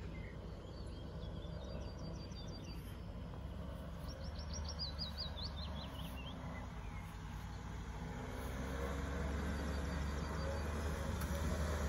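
Suzuki 4x4's engine running low and steady as it approaches, growing louder over the last few seconds. Birds sing over it, with a falling trill about four seconds in.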